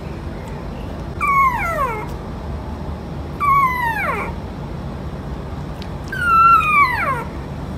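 A sleeping puppy whimpering three times, about two seconds apart. Each whimper is a high whine that slides steeply down in pitch and lasts under a second.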